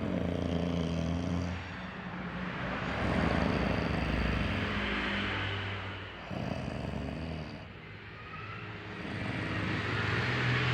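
A woman snoring with a rumbling, engine-like 'wur wur' sound. It swells and fades with her breaths every few seconds.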